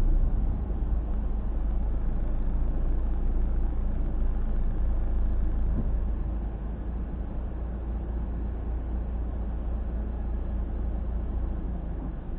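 A car's low, steady driving rumble heard from inside the cabin, with an abnormal noise from around a tyre that grows with speed. The uploader tags it as a failing hub bearing. The rumble eases a little about six seconds in.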